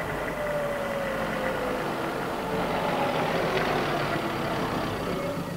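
A small van driving past along a village road, its engine note sliding slowly lower as it goes by.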